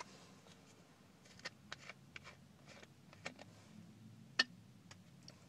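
Quiet cab with scattered small clicks and mouth noises over a faint low hum, and one sharper click about four and a half seconds in as a plastic soda bottle is put to the lips.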